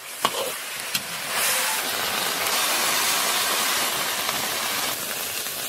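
Fried fish pieces sizzling in sweet-and-sour sauce in a hot wok, a steady hiss, with a sharp clack of the ladle on the wok just after the start.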